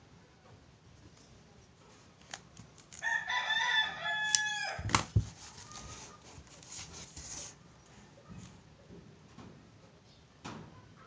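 A rooster crowing once, a call of under two seconds about three seconds in, followed right away by two sharp knocks and a papery rustle as the notebook is handled.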